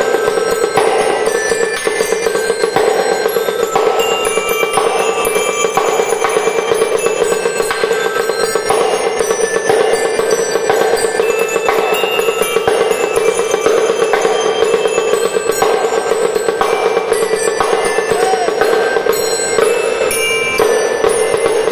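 Snare drum played with sticks in fast, unbroken strokes and rolls, in the marching style of a drum and lyre band, with bell-lyre notes ringing out a tune above it.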